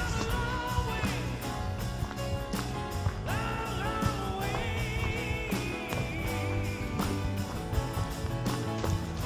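Background music: a rock-style song with a steady drum beat and a sung or lead melody line.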